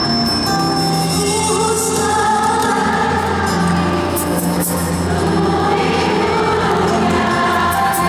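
Live band playing a Filipino pop ballad, with a woman singing lead through a microphone and a sustained, full backing.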